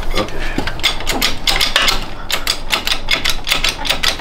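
Quick, irregular metallic clicking and clatter from the hand-pumped bottle jack of a shop press being worked by its handle.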